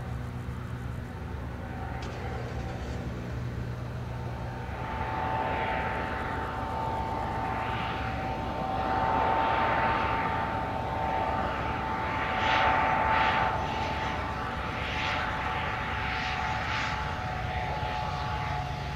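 Antonov An-2's Honeywell TPE331 turboprop and propeller on approach to land. A steady high turbine whine comes in about five seconds in, over a rushing propeller noise that swells and fades several times and grows gradually louder.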